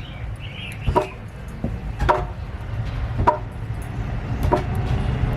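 Five sharp knocks about a second apart, each with a brief ringing, over a steady low rumble.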